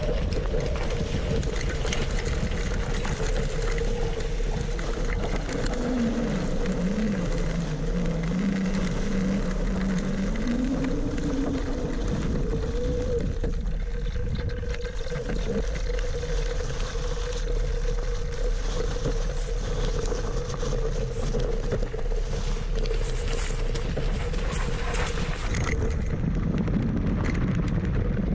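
Qiewa Qpower electric scooter riding over a dirt track: a steady rumble of the tyres and air rushing past, under a steady electric motor whine. A lower tone rises and falls for several seconds near the middle.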